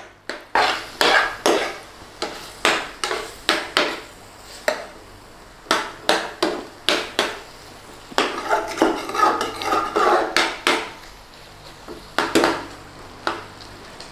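A utensil scraping and clinking against a cooking pan in repeated stirring strokes, about one to two a second, with a short pause near the end.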